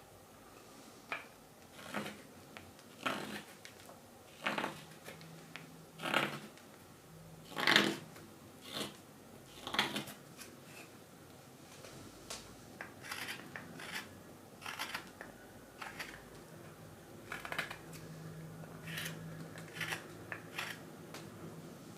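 Large hook knife slicing curls out of the bowl of a green wild-cherry spoon, a series of short rasping cuts about one a second at an irregular pace.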